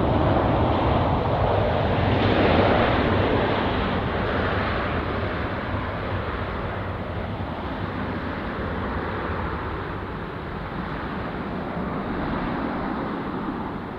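Jet airliner landing, its engine noise loudest at first and then slowly fading as the plane moves away.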